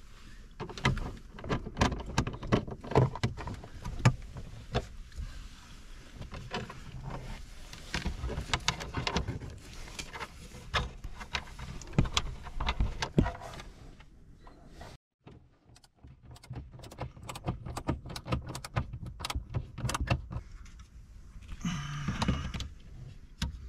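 Irregular clicks, taps and rattles of hard plastic dashboard trim and small screws as the top-of-dash speaker panel of a 2022 Ford F-350 is fitted and its screws are put back in. The sound drops out briefly about two-thirds of the way through.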